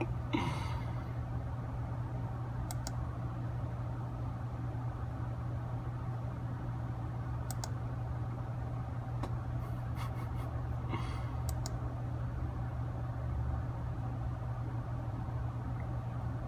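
A steady low hum over background noise, with a few faint scattered clicks.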